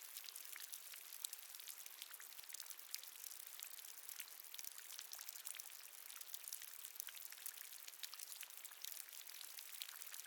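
Water dripping: a faint, dense patter of many small drops falling continuously, mostly high-pitched.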